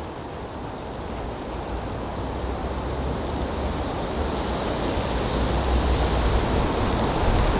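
A gust of wind buffeting the microphone: a rushing noise with a deep rumble, growing steadily louder.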